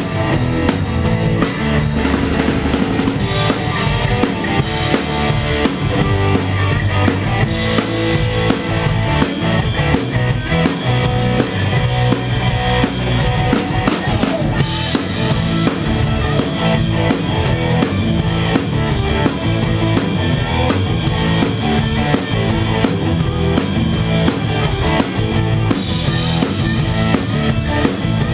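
Live rock band playing, with electric guitars, bass guitar and a drum kit keeping a steady, driving beat on kick, snare and cymbals.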